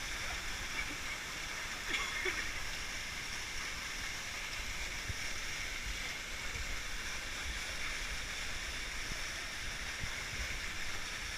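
Steady rushing of river water and a waterfall, an even noise without breaks.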